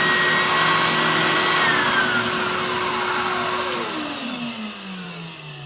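Triton 450W oscillating spindle sander running with a sanding drum fitted, then switched off. Its motor winds down with a whine that falls steadily in pitch over the last couple of seconds.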